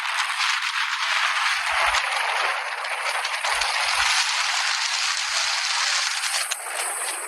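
Rain falling steadily, a dense crackling patter with a few faint low thumps mixed in.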